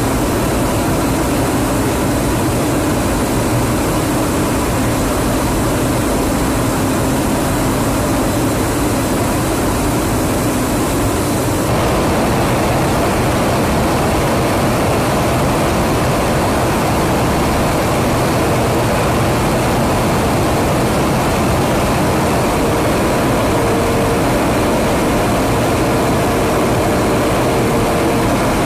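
Steady aircraft noise, a drone of engines and rushing air, heard from inside a KC-135 Stratotanker during in-flight refuelling. The sound changes abruptly about twelve seconds in, and a faint steady tone joins it near the end.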